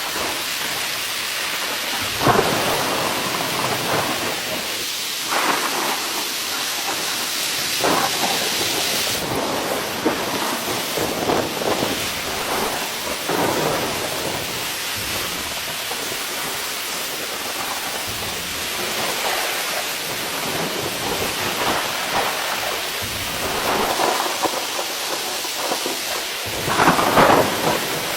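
Heavy rain falling steadily, with irregular louder surges every few seconds, the loudest near the end.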